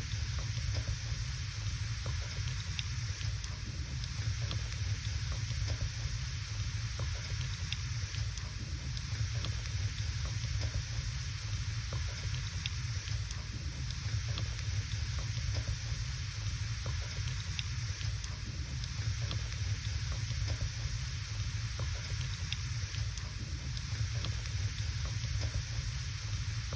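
Wood burning in a fireplace: a steady hiss over a low rumble, with small crackles scattered throughout.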